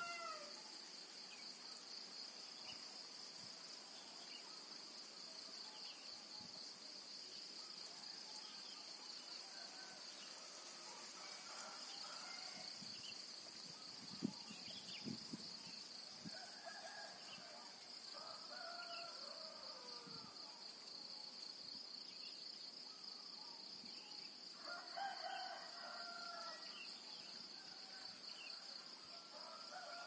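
Faint morning village ambience: a steady high-pitched insect drone, with roosters crowing several times across the clip. There is a single brief tap about halfway through.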